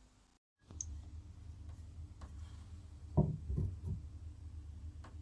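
Bath mixer tap parts being handled and fitted back together: scattered light clicks and three soft knocks about three seconds in, over a steady low hum.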